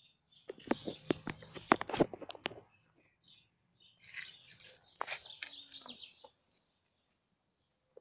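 Dry leaves crackling and rustling as cats scuffle over a dead bird and one snatches it up, in two bursts of sharp crackles. Small birds chirp faintly in between.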